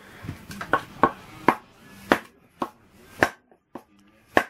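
A hammer striking a wooden block wedged against the connecting rod of a rust-seized Onan twin-cylinder engine, trying to drive the stuck piston down: about eight sharp knocks, roughly two a second.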